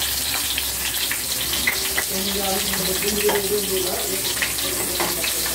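Eggplant slices frying in hot oil: a steady sizzle dotted with small pops and crackles.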